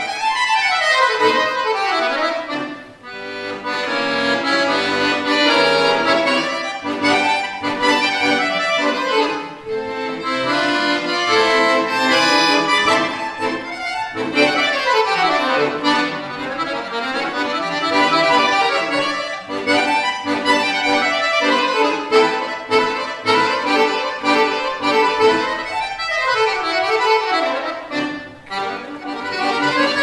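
Solo chromatic button accordion (bayan) playing a fast piece, with quick sweeping runs up and down the keyboard. The loudness briefly dips about three seconds in and again near the end.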